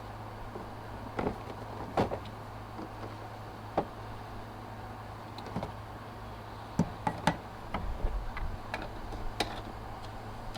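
Irregular light clicks and knocks from plastic engine-bay covers being handled and fitted back in place, more frequent in the second half, over a steady low hum.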